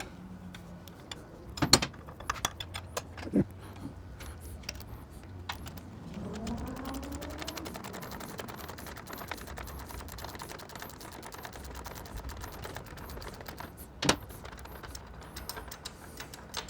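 A wrench working on motorcycle engine-mount bolts: scattered light clicks and metal taps, with a few sharper knocks, one near the start, one a couple of seconds later and one late on.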